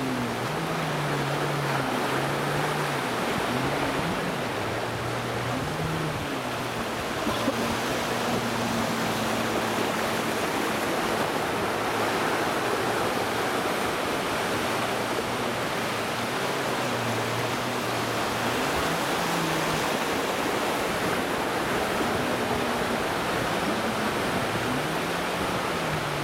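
Stand-up jet ski engine running out on the water, its pitch rising and falling as the throttle is worked, over a steady wash of surf and spray.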